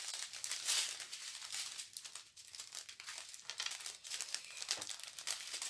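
Small plastic packets of diamond-painting drills crinkling as they are handled, a run of quick, irregular rustles.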